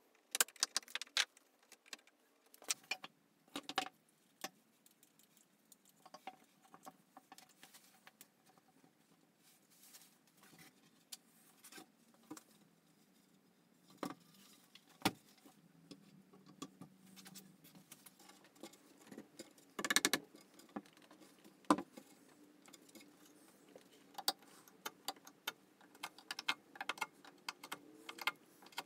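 Scattered small knocks, taps and clinks of hand-tool woodworking at a bench: wooden boards and tools being handled and set down, with a few louder knocks.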